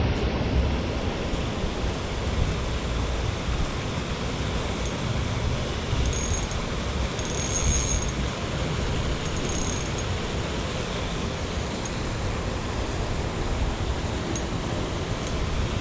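Steady rushing of creek water, with wind buffeting the microphone in a low, unsteady rumble.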